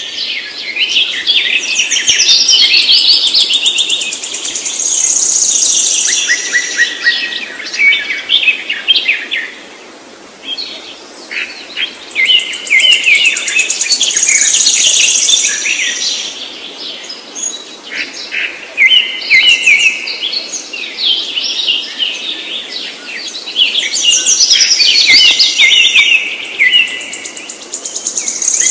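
A songbird singing long, fast phrases of trills and chirps, in bouts of several seconds with short pauses between.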